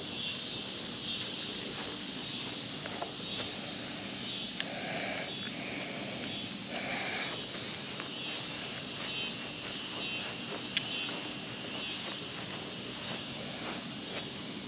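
Steady chirring of crickets and other insects, pulsing in a high band, with one sharp click about eleven seconds in.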